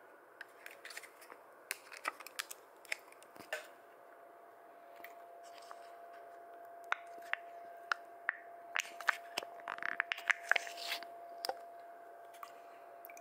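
Small plastic coffee creamer cup being handled and its foil lid peeled back, crinkling and clicking in two spells of short sharp clicks. A faint steady tone sits behind it.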